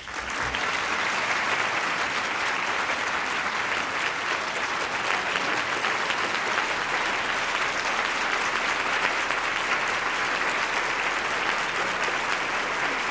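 A large audience applauding, breaking out at once and holding steady.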